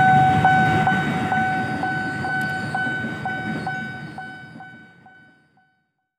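Railway level-crossing warning bell ringing steadily at about two strikes a second over the low rumble of rail traffic, fading out.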